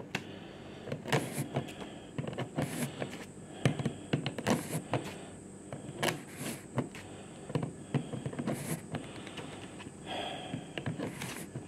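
The plastic gear train and drive coupling of a Brother colour laser toner cartridge being turned by hand, giving irregular clicks and soft rubbing as the developer roller rotates. The roller is being turned to spread an even layer of toner on its freshly cleaned surface.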